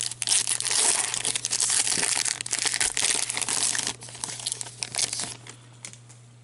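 Foil wrapper of a 2015-16 Upper Deck hockey card pack being torn open and crinkled: dense crackling for about four seconds, thinning to a few scattered crackles and dying away near the end.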